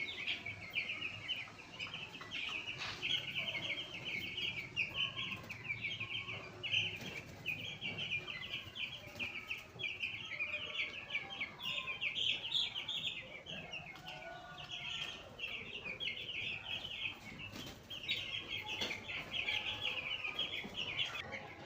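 A flock of chickens calling together: a dense, continuous chorus of short, high chirps with occasional clucks.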